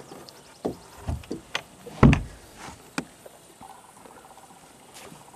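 Scattered knocks and sharp clicks of gear being handled in a fishing boat while a hooked fish is unhooked, with one heavier low thump about two seconds in.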